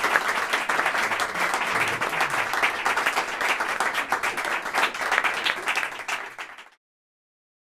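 Audience applauding, a dense patter of many hands clapping that fades toward the end and then cuts off to silence.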